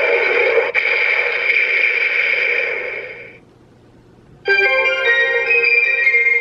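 Complete Selection Modification Den-O transformation belt playing its electronic sound effects through its speaker: a hissing, static-like effect that fades out about three seconds in, a second of quiet, then a keyboard-like electronic jingle that starts abruptly.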